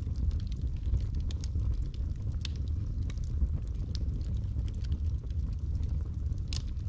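Wood fire crackling in a fireplace: irregular sharp snaps and pops over a steady low rumble, layered with rain.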